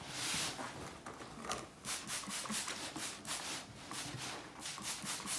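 Flat iron sliding back and forth over cloth on an ironing board, a run of quick rubbing strokes at about three a second over fabric dampened with spray water.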